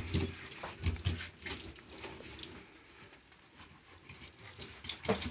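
Tap water running and splashing onto a tilapia at a fish-cleaning sink. Short scraping and knocking sounds come from the fish being worked on the sink top in the first second and a half, and again near the end.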